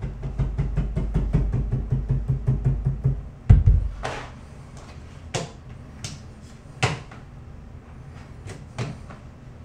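A fist tapping a marble shower curb down into its bed of thinset: a fast run of low thumps, about seven a second, for the first three seconds, then one heavier knock and a few light clicks and taps on the stone.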